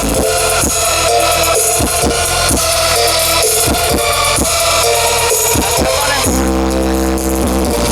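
Electronic dance music with heavy bass played loud through a large sound system under test: repeated drum hits, then a long held deep bass note from about six seconds in.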